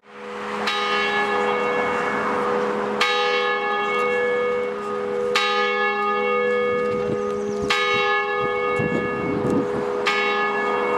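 A single church bell tolling slowly: five strikes, one about every two and a half seconds, each ringing on under the next.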